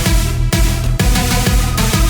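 Electronic dance music goal song with a steady kick drum about twice a second under held synth chords.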